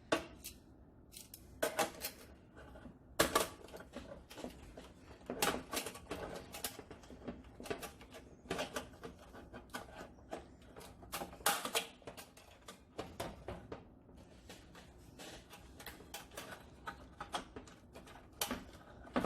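Irregular clicks, taps and light metal clinks of stove parts being handled and fitted by hand, a few sharper knocks among them.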